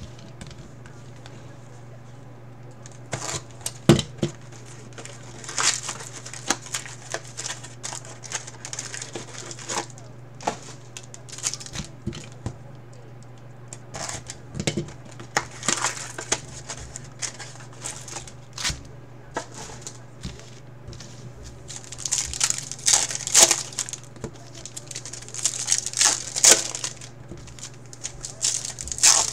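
Plastic wrapping and foil trading-card packs crinkling and tearing as a hobby box of baseball cards is opened and the packs are handled, in irregular crackles that get busier near the end, with a sharp knock about four seconds in. A steady low hum runs underneath.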